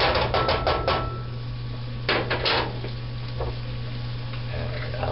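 A cooking utensil clacking against a frying pan while sausages are turned in it: a quick run of taps, then three more about two seconds in, over a steady low hum.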